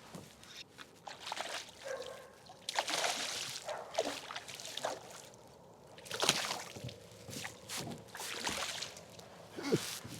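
Water splashing and sloshing in irregular bursts at the surface, with a few sharp drips and knocks.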